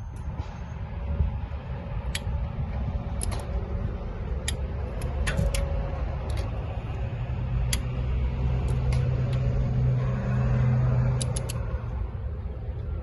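Scattered sharp clicks of a torque wrench as cylinder head bolts are tightened in sequence, over a steady low rumble that swells for a few seconds near the end.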